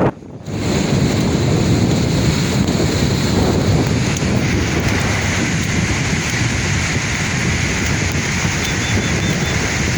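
Sea waves washing and breaking on the shore in a steady, continuous surge, with wind buffeting the microphone. The sound drops out briefly at the very start, then returns.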